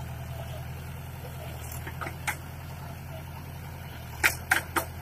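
Tractor diesel engine running steadily while driving a backhoe, with one sharp knock about two seconds in and three quick knocks near the end.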